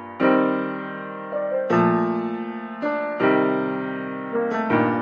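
Slow background piano music: chords struck about every one and a half seconds, each ringing out and fading before the next.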